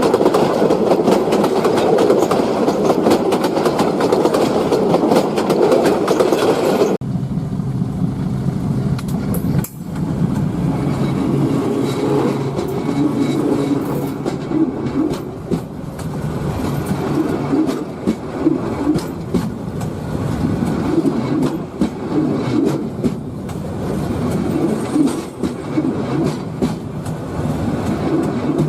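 Train running on rails with the steady clatter of wheels over the track. About seven seconds in the sound changes abruptly to a quieter, repeated clickety-clack.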